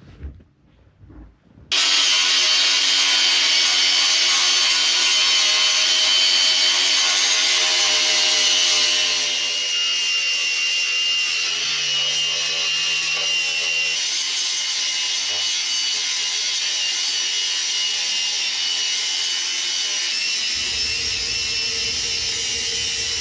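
A small electric motor, such as a power tool's, starts about two seconds in and runs steadily with a high-pitched whine. It becomes a little quieter after about nine seconds.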